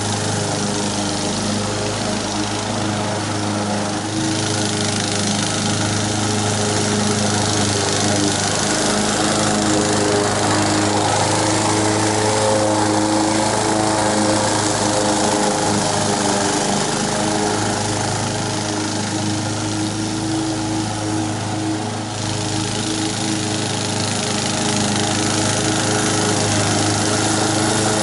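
Honda HR194 walk-behind mower's engine running steadily as the mower is pushed through grass, its pitch dipping briefly about four seconds in and again near the end as the blade takes on more grass.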